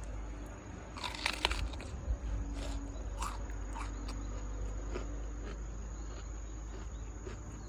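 Shiba Inu biting and chewing raw cabbage: a burst of loud crunches about a second in, then single crunches every half second or so.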